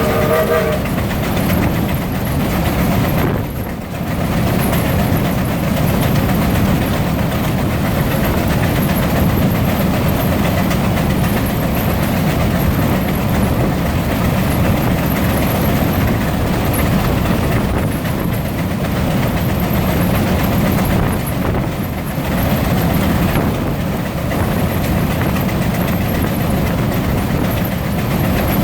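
Frick steam traction engines working under belt load, driving fans and a power-absorbing brake, their exhausts chuffing rapidly and blending into a continuous din. A steam whistle sounds and cuts off just under a second in.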